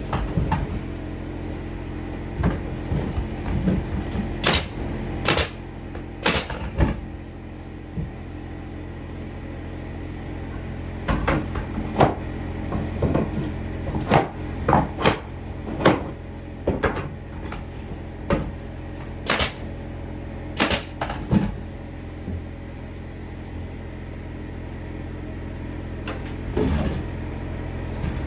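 Irregular sharp knocks and clatters of wood being handled and struck during carpentry work, coming in clusters with quieter gaps, over a steady low hum.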